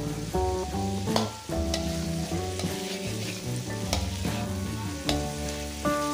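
Metal spatula scraping and clacking against a steel wok as shrimp, scrambled egg and sliced meatballs are stir-fried, with the oil sizzling and a few sharp clacks. Background music with melodic notes plays along.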